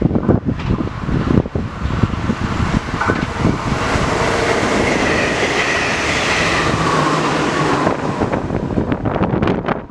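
NS ICM 'Koploper' electric intercity train passing at speed: a rush of wheels on rail that swells to a peak about five to seven seconds in and then fades, with a faint whine dipping in pitch as it goes by. Wind buffets the microphone at the start and end.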